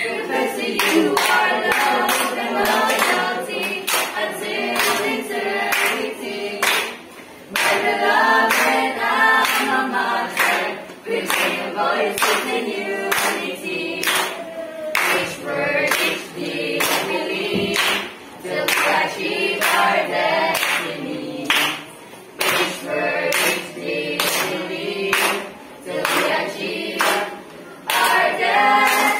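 A small group of teenage boys and girls singing a school hymn together, with hand claps keeping the beat.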